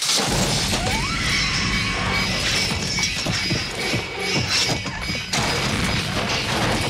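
Film soundtrack of a violent break-in: continuous crashing and smashing with mechanical clatter, over music.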